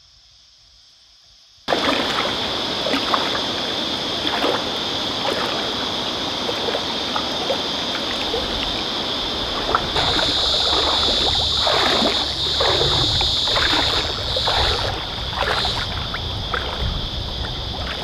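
Water splashing and sloshing as a person swims and another wades through a shallow river pool, over a steady high-pitched drone. The sound comes in suddenly about two seconds in, after a quieter opening.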